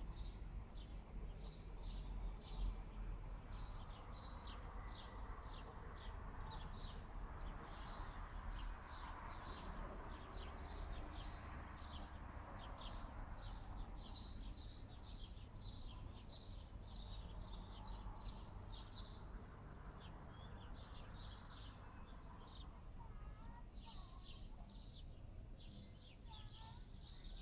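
Faint outdoor background: rapid high chirps, a few a second, over a steady low rumble.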